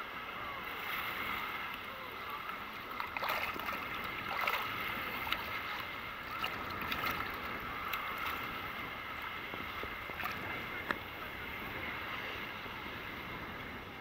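Small sea waves sloshing and lapping against a camera held at the water's surface, with short splashes now and then over a steady hum.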